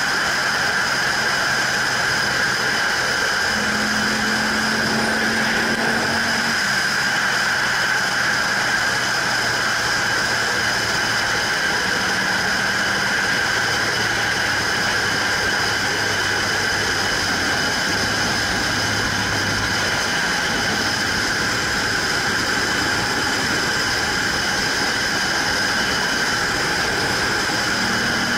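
Motorcycle riding at road speed: a steady rush of wind and road noise over the engine, with a constant high-pitched whine on top. The low engine note steps to a new pitch a few times.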